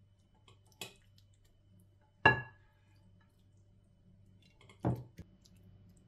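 Minced-meat filling being spooned into an oven dish: a few knocks of the spoon against the cookware, the loudest a sharp clink with a brief ring about two seconds in, and a duller knock near the end.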